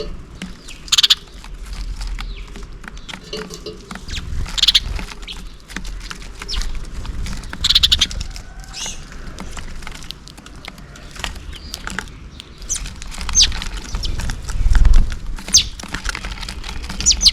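House sparrows chirping: short, scattered high chirps every few seconds, over a low rumble that swells briefly near the end.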